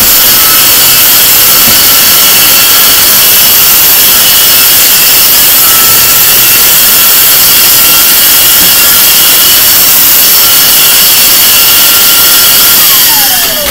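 Vacuum cleaner running loudly, sucking spilled cornstarch-and-conditioner dough out of carpet. Near the end it is switched off and its motor whine falls in pitch as it winds down.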